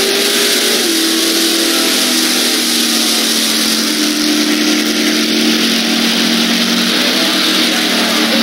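Drag-racing cars' engines held at full throttle down the strip, a steady engine note over heavy hiss. The pitch steps down about a second in.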